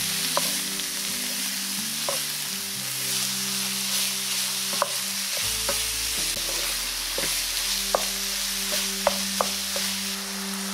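Ground pork sizzling in hot oil in a stone-coated nonstick frying pan as a wooden spatula stirs and breaks it up, with scattered sharp taps and scrapes of the spatula against the pan, the loudest a few near the end.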